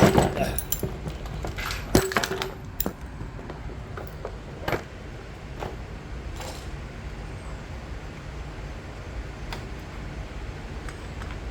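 Metal hand tools clinking and knocking while a spark plug is taken out of a small chainsaw engine: a sharp clank at the start and another about two seconds in, then a few lighter taps.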